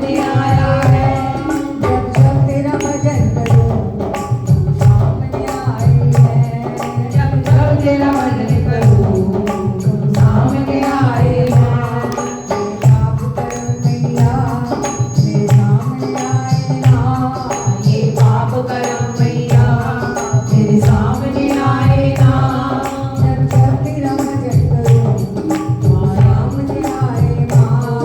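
Hindu devotional bhajan music: a melody over a steady, rhythmic drum beat with jingling percussion, played between sung lines.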